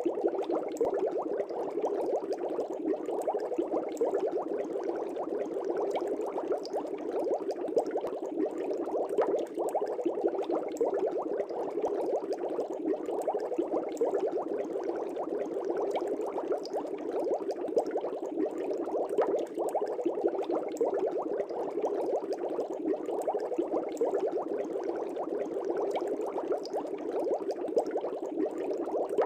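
Aquarium air bubbles rising and bursting at the water's surface in a steady, continuous bubbling.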